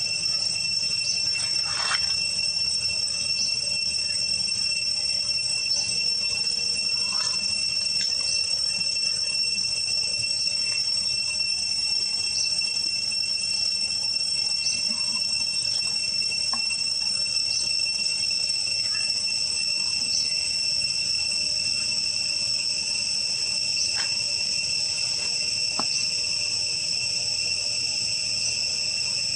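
Insects, such as crickets or cicadas, chirring in a steady, continuous high drone, with short chirps every second or two and a few faint brief calls.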